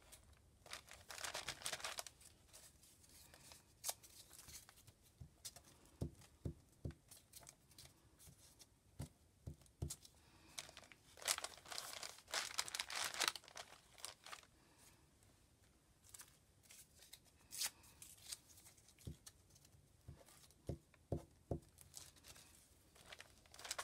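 Paper scraps being handled and glued into a composition notebook: rustling and rubbing as the pieces are pressed flat onto the page, with two longer crackly stretches of paper noise, about a second in and again from about eleven to thirteen seconds. A few light knocks in between.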